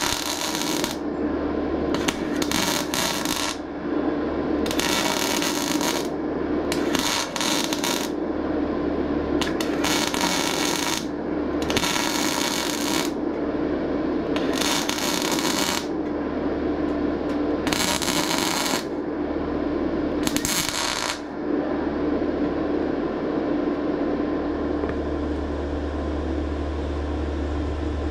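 MIG welder arc crackling on thin sheet steel in about nine short bursts of a second or so each, stitch-welding a patch. The welding stops about three quarters of the way through, leaving a steady hum.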